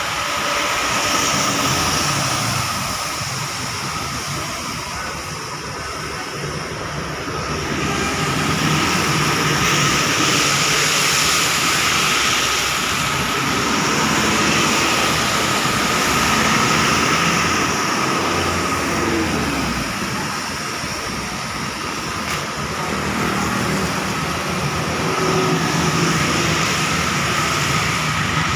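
Road traffic passing on a wet road: a bus, cars and motorcycles drive by with engine noise and tyre hiss, swelling and fading as each one passes.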